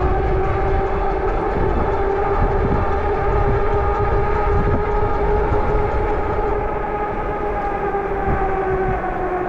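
Electric hub motor of an AOSTIRMOTOR S07-B fat-tire e-bike whining at full pedal assist near its top speed of about 25 mph. The whine is steady with several pitches, climbs slightly, then drops a little near the end, over heavy wind rumble on the microphone.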